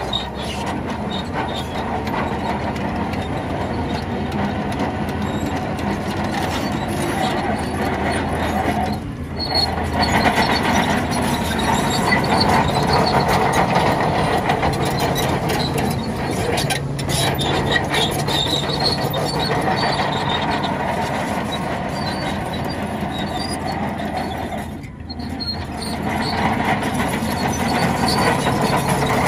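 Crawler bulldozer working: its diesel engine running under load while the steel tracks squeal and clank, with two brief lulls.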